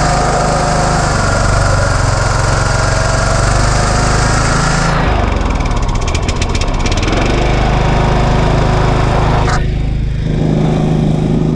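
Kohler Courage 20 hp engine on a riding lawn mower running warmed up while its choke is adjusted. The engine note changes about five seconds in, with a few light clicks, and changes again near the end.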